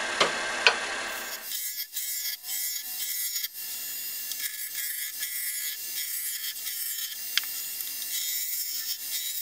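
Spindle gouge cutting into an oak blank spinning on a wood lathe, roughing it down to a cylinder: a continuous rough scraping hiss as shavings fly off, with two sharp ticks in the first second.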